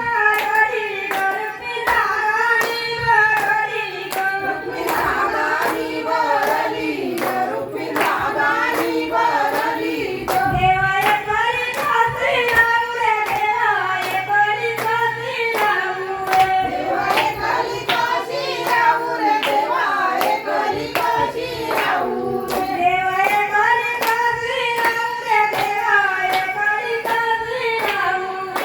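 A woman singing a traditional Marathi Ganpati devotional song, with steady rhythmic hand clapping keeping the beat.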